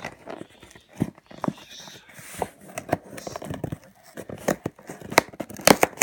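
Cardboard shipping box being worked open with a charger instead of a knife: the tool scrapes and picks at the packing tape, with irregular clicks and taps on the cardboard and a stretch of tearing about two seconds in.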